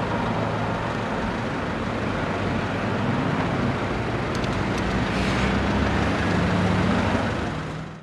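Street traffic: cars running by with a steady low engine hum, and a few faint clicks about four and a half seconds in. It fades out near the end.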